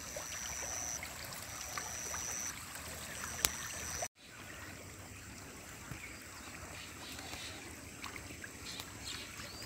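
Faint water sounds of catfish feeding at a pond surface: small scattered splashes and dribbling over a steady hiss. A thin high tone sounds three times in the first four seconds, and the sound drops out for an instant just after four seconds.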